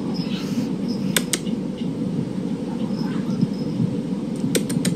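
A steady low rumble, with a couple of light clicks about a second in and a quick run of clicks near the end.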